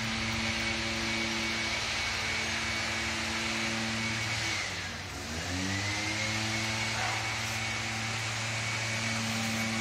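A motor or engine running steadily with an even hum. Its pitch dips and recovers about five seconds in.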